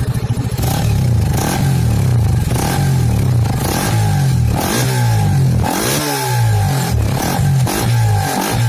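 Honda Winner 150's single-cylinder engine running through a newly fitted Redleo aftermarket exhaust. After a steady idle, the throttle is blipped repeatedly, the note rising and falling about every half second.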